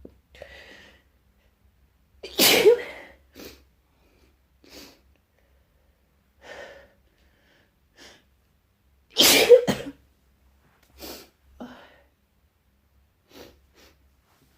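A person with a cold sneezing: two loud sneezes, about two seconds in and about nine seconds in, with shorter, quieter sounds in between.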